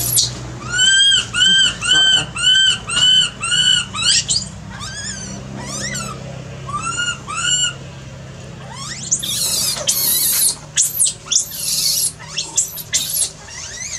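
Baby macaque screaming in distress: a quick run of high, arched cries, a little under two a second, then after a short lull harsher, noisier screams near the end.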